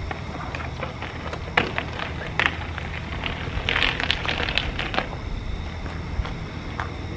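Footsteps and a bicycle being wheeled over rough pavement: scattered crunches and clicks, thickest about four seconds in, over a steady low hum.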